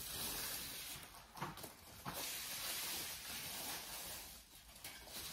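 Plastic wrapping rustling and crinkling as a bag's shoulder strap is unwrapped by hand, with a couple of soft knocks, easing off near the end.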